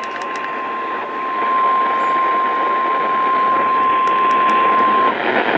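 NOAA Weather Radio 1050 Hz warning alarm tone: one steady beep held over loud radio static, cutting off about five seconds in and leaving the static. It signals that a warning, here a severe thunderstorm warning, is about to be read.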